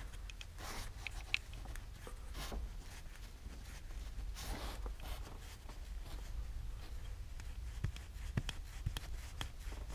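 Faint clicks and rustles of a gloved hand working a small plastic coolant bleed screw in an engine bay, over a low steady hum.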